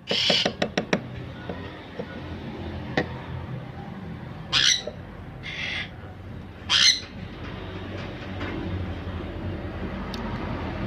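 Sun conure squawking in short, loud, harsh calls: one at the start, then others about four and a half and seven seconds in. A quick run of sharp clicks follows the first call.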